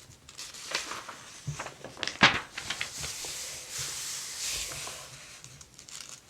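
Paper catalog pages being turned by hand: soft paper rustling, with a few crisp flicks, the loudest about two seconds in.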